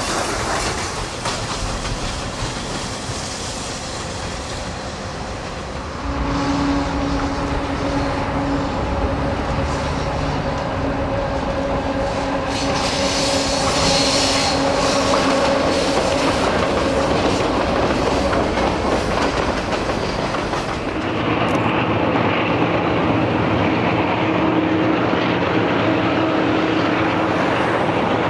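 Alco diesel locomotives hauling freight trains past, their engines running at a steady pitch over the rolling of the cars. The sound changes abruptly twice as the scene cuts to another passing train.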